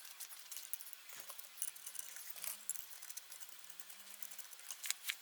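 Faint scattered clicks and light metallic taps of a hand tool and small parts as the pushrod guide plate is bolted down on a 170F single-cylinder petrol engine, with a few sharper clicks near the end.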